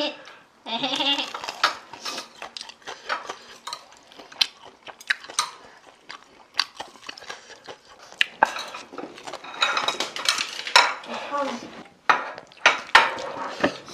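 Eating utensils clinking and scraping against bowls and dishes, many sharp clicks in quick, irregular succession.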